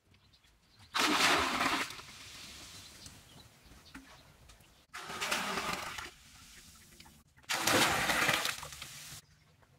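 Water poured from above splashing into a pool in three short bursts, each about a second long, starting suddenly, with quiet stretches between.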